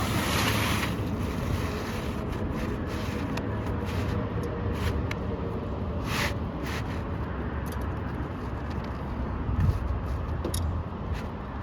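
Asphalt shingle scraping against the surrounding shingles as a replacement is slid into place, a few short scrapes over a steady low rumble of wind on the microphone.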